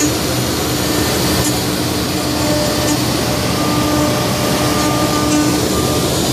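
CNC router spindle running steadily with a tapered bit cutting through solid wood.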